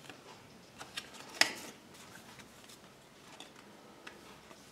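A few short faint clicks and light tapping handling noises over quiet room tone, the sharpest about a second and a half in.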